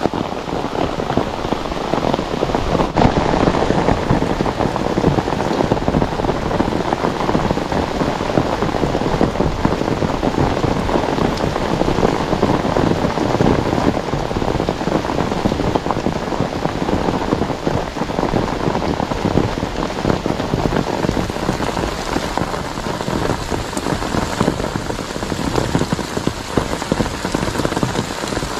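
Steady rain, the drops pattering close on an umbrella held overhead.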